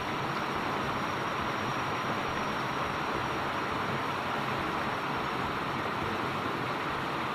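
Water pouring steadily over a small concrete weir into a stream pool.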